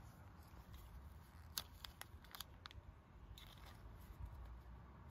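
Faint, soft clicks of trading cards being flipped through one by one in the hands, mostly in a short cluster around the middle.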